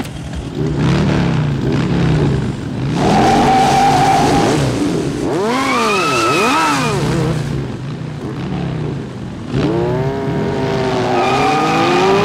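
Motorcycle engines revving up and down several times, with tyre squeal from a rear-wheel burnout. About three quarters of the way through, the engines surge again with rising pitch as the bikes accelerate away.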